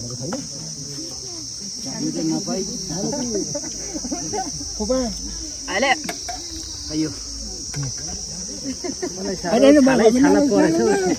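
A steady high-pitched insect chorus, with chattering voices underneath that grow louder near the end.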